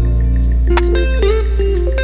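Background music: electric guitar melody over a steady bass and drums.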